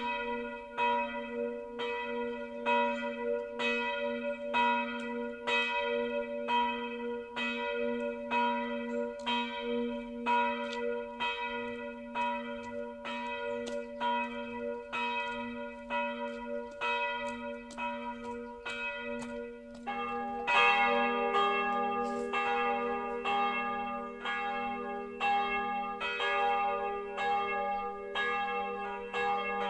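Church bells cast by Karl Czudnochowsky in 1950, tuned g'–b'–c'', ringing a full peal of steady, overlapping strokes. About twenty seconds in a deeper bell joins and the peal grows fuller and louder.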